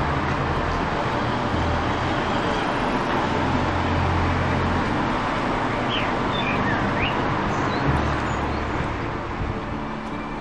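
Steady outdoor rushing noise with a low rumble that swells and fades in patches. A few short bird chirps come about six to seven seconds in.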